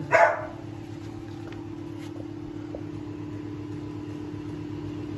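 A steady low mechanical hum, like a fan or household appliance running, with one short loud sound at the very start.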